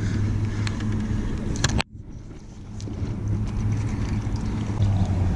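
Steady low engine hum with a few sharp clicks in the first two seconds. The sound drops out suddenly just before two seconds in, then the hum comes back and slowly grows louder.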